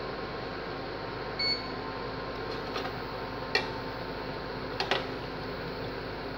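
An induction cooktop runs with a steady hum of its cooling fan. About a second and a half in it gives a short electronic beep as its control is pressed. Then a metal spoon clinks a few times against the stainless steel pot while the pork and vegetables are stirred.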